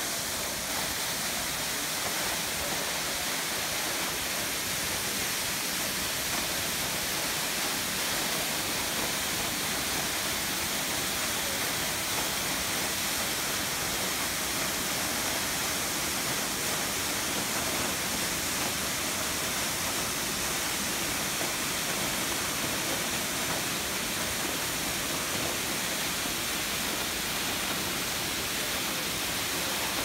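Steinsdalsfossen, a 50 m waterfall, falling onto rocks: a steady rushing hiss that holds at one level throughout.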